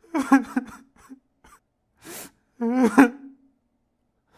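A man sobbing: two loud wailing sobs with a quavering pitch, about two and a half seconds apart, with a sharp in-breath between them.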